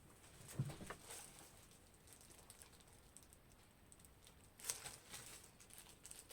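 Faint handling noises of gloved hands at work: a few soft light knocks and rustles, one cluster about half a second in and another about three quarters of the way through, over quiet room tone.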